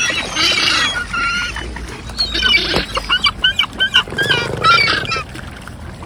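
Gulls in a feeding crowd giving harsh squealing calls, with a quick run of short cries about halfway through.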